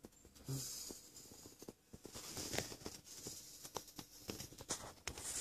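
Fabric rustling and scratching as a kitten shifts and steps about on a soft cushion, with many small irregular clicks and scuffs, starting about half a second in.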